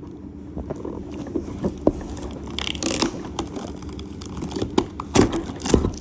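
Hands handling toy packaging: scattered clicks and small knocks, a short burst of packaging crinkling about three seconds in, and two louder knocks near the end.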